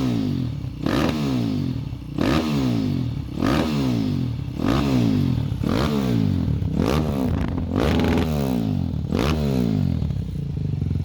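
KTM 530 EXC's single-cylinder four-stroke engine revved in short throttle blips, about one a second, each rising sharply and falling back, before settling to a steady idle near the end.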